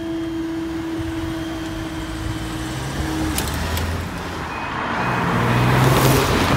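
A road vehicle drives past close by, its engine and tyre noise swelling to the loudest point near the end. Underneath, a steady tone cuts off about halfway through.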